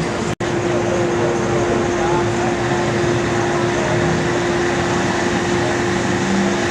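Diesel pickup engine running hard at a steady pitch while pulling the sled: a loud, even drone with a steady tone held through it. A brief dropout about half a second in is an edit cut.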